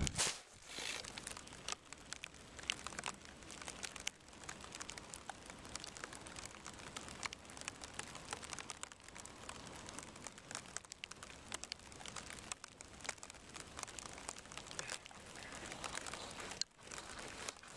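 Rain falling on a camera and its wet microphone: a dense, irregular crackle of close drops hitting it, with one louder knock at the very start. The crackly sound comes from rain water getting into the microphone.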